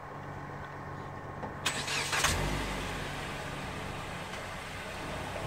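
A vehicle engine running steadily. About two seconds in there is a sharp click and a short rattling burst, after which the engine runs louder and deeper.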